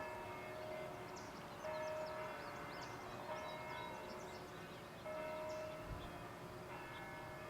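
Church bell ringing, struck five times at an even pace, about once every second and a half to two seconds, each stroke ringing on and dying away. Birds chirp faintly in the first few seconds.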